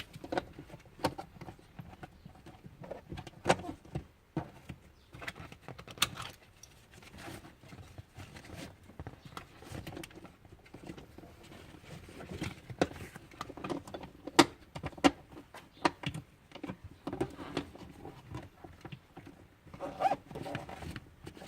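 Irregular clicks, knocks and rubbing as a Hauck Varioguard child car seat and its plastic parts are handled and pushed into place in a car, with a few sharper knocks spread through.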